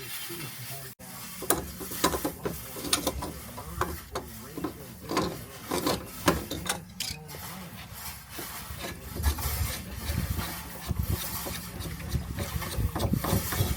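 Irregular knocks, clicks and scraping from hand work with tools and parts, over a steady low hum. The knocks bunch up and grow louder near the end.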